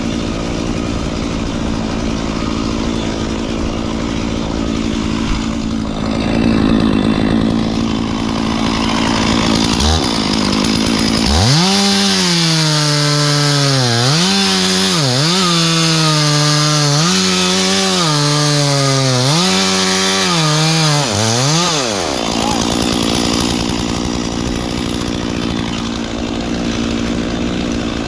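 Stihl chainsaw running at idle, then revved to full throttle about eleven seconds in for roughly ten seconds, its high engine note dipping in pitch five or six times before it drops back to idle.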